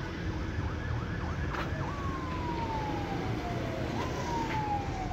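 Siren sounding: a few quick up-and-down yelps, then two long, slowly falling tones, each starting with a sudden jump up in pitch, over low street rumble.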